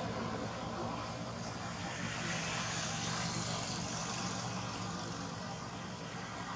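A steady, distant engine drone over an even outdoor background hiss.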